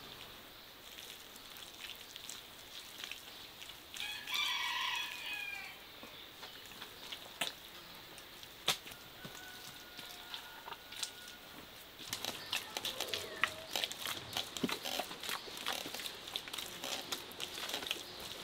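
A rooster crows once, about four seconds in. From about twelve seconds on comes a run of small slaps and clicks as hands work and smooth mud plaster onto the oven.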